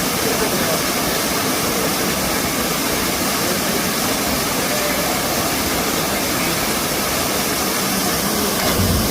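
Waterfall running: a steady, loud roar of falling water.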